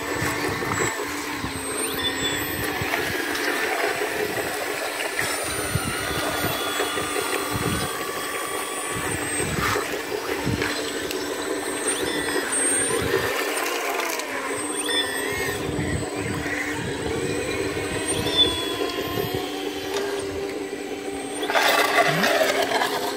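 Hydraulic pump of a Hidromek H4 500 Metalhobi RC model excavator running steadily with a hum and a whine that shifts in pitch as the arm and bucket work. About 22 seconds in, a louder splash and scrape as the bucket digs into the stream bed.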